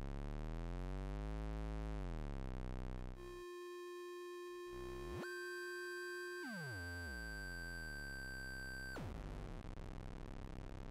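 Hexaphonic Witchcraft Synth, a DIY kit synthesizer, droning with several buzzy pitched tones that glide up and down as its pitch knobs are turned. About three seconds in a steady high tone comes in, and a higher one joins a couple of seconds later. The pitches then slide down, and the highest tone cuts off about nine seconds in, leaving a low rough drone.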